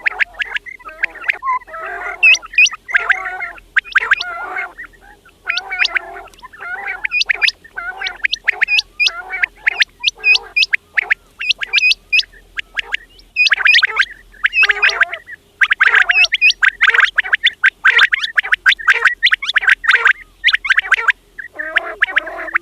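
Quails calling: a rapid stream of short, sharp chirping calls, many overlapping in dense clusters with brief pauses between them.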